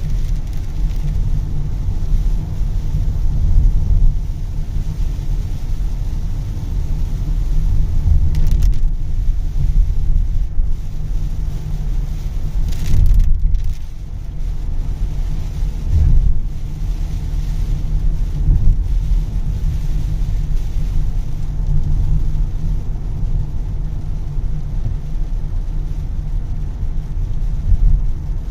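A car driving in heavy rain: a steady, loud low rumble from the road and vehicle, with a fainter hiss of rain over it.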